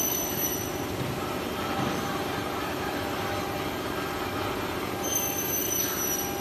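Blue Elephant 1325ATC CNC router running, its spindle and bit cutting a pattern into a board: a steady mechanical hum and hiss with a constant whine. Thin high squealing tones that fall slightly in pitch come at the start and again about five seconds in.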